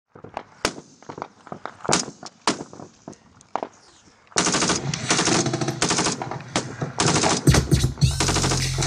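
Military gunfire: scattered single rifle shots with some echo, then from about four seconds in rapid automatic fire in several bursts. Near the end come heavy low booms as a deep music beat comes in.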